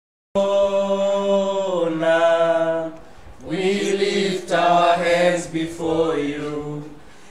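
A man singing a slow worship song unaccompanied, holding long notes and stepping between them. The singing starts abruptly just after the beginning, with a short breath pause about three seconds in.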